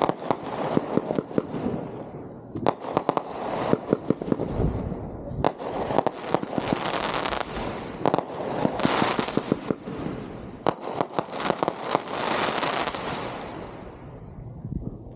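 Fireworks going off in quick succession: many sharp cracks over long stretches of crackling, coming in several waves that each die away, the last fading out near the end.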